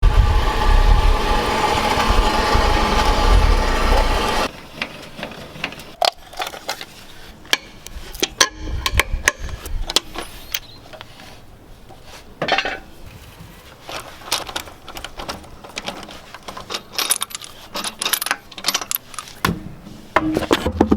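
A loud steady mechanical noise with a faint tone in it, cutting off suddenly about four and a half seconds in. Then a long run of scattered metallic clinks and knocks, like tools and small metal parts being handled.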